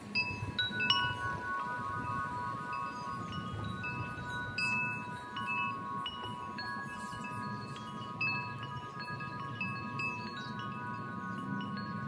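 Wind chimes ringing at irregular moments: several long notes ring on and overlap, while shorter, higher notes are struck every second or so.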